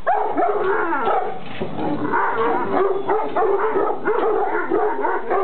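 Kangal shepherd dogs yelping and whining excitedly, with some barks: many short calls that rise and fall in pitch, overlapping one another with hardly a pause.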